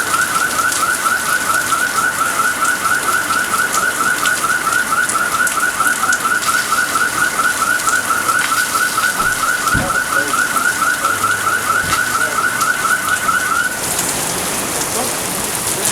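Steady rain falling, with a rapid, evenly repeated rising chirp, about four or five a second, running over it until it cuts off about 14 seconds in; the rain carries on alone after that.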